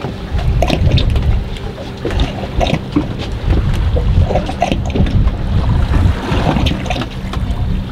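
Wind buffeting the microphone in an uneven rumble, with water slapping irregularly against the hull of a drifting fishing boat.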